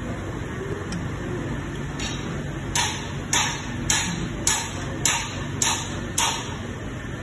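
A faint knock, then seven sharp metallic knocks in an even rhythm, a little under two a second, over a steady low hum.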